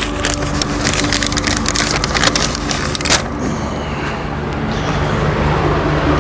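Aerosol spray-paint can hissing in a run of short bursts for about three seconds, then stopping, over a steady low hum.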